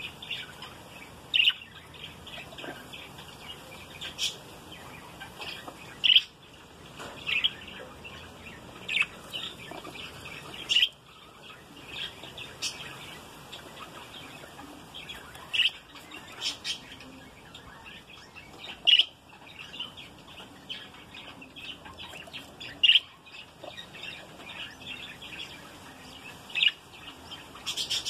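Budgerigars chirping and chattering: a continual run of short, high chirps, with a sharper, louder chirp every second or two.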